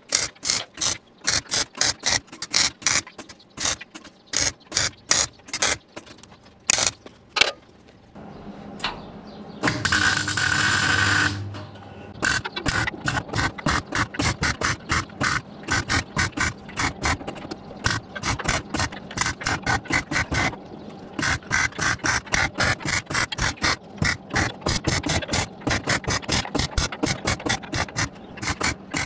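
Welder's arc striking a rapid string of short tack welds on steel plate, each tack a brief crackling burst, a few per second. About ten seconds in, one longer weld runs for a second and a half.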